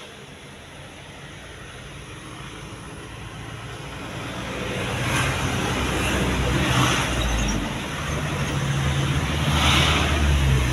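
Isuzu Panther 2.5 four-cylinder diesel engine running, heard inside the cabin. It gets louder about halfway through, with two brief surges in level.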